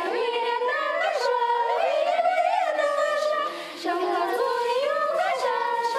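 Unaccompanied female singing voice, with wavering notes held and sliding between pitches.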